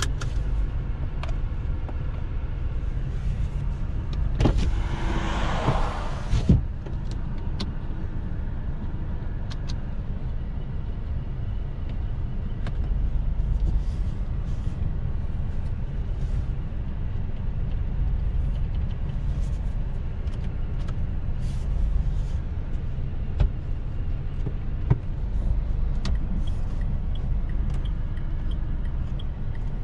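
Dacia Sandero Stepway's 1.5 dCi four-cylinder turbodiesel idling steadily with a low rumble, heard from inside the cabin. A brief rushing noise comes about five seconds in, and small clicks come now and then.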